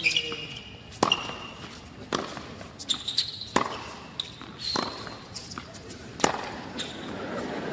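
Tennis rally on a hard court: racquets striking the ball and the ball bouncing, sharp hits about once a second, with short high squeaks of shoes on the court.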